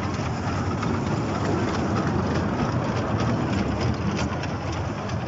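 Kiddie train ride running around its circular rail track: a steady motor rumble with light clicking of the small cars' wheels over the rails.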